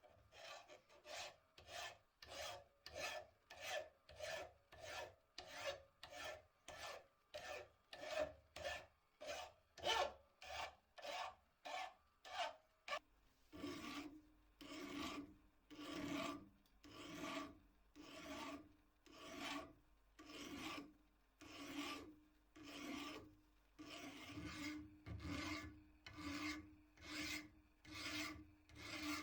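Hand file rasping back and forth across the steel head of an old blacksmith's hammer, rounding off its sharp edges. The strokes come about two a second, then about halfway through turn slower and longer, with a low ring under each stroke.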